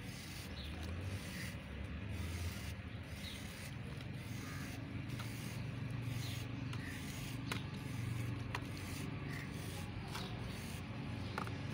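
Knife blade scraping the face of a dry white cement block in repeated strokes about once a second, with shaved powder and crumbs falling into a basin of water. A low steady drone runs underneath.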